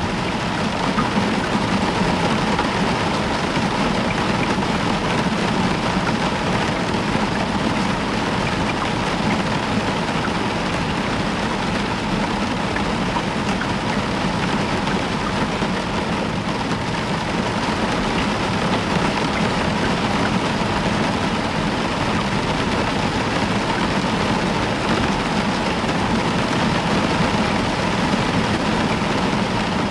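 Heavy rain falling steadily on a roof: an even, unbroken hiss with no distinct claps or breaks.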